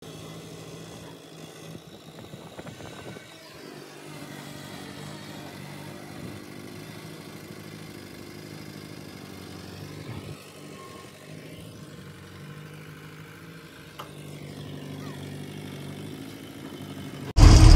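Diesel engine of a mobile hydraulic crane running while it lifts a steel load off a flatbed trailer, a steady drone whose pitch rises and falls a few times.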